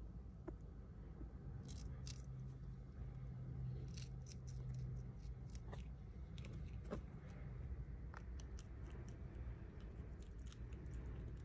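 Senegal bushbaby crunching a small dried fish: faint, irregular crisp clicks and crackles, coming thickest in the middle, over a low steady hum.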